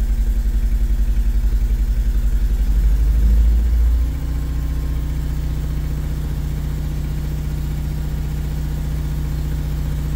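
Mercedes T1N Sprinter's five-cylinder diesel engine running steadily at a raised idle while it warms up after an injector seal repair; its note changes and gets a little quieter about four seconds in.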